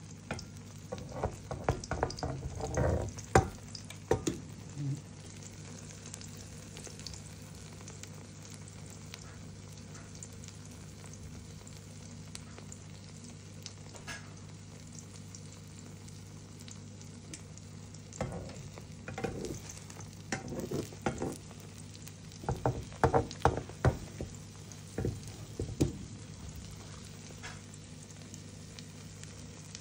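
Egg omelette frying gently in a non-stick pan, with a metal slotted spatula scraping and tapping against the pan in two spells, one at the start and one in the second half. A steady low hum runs underneath.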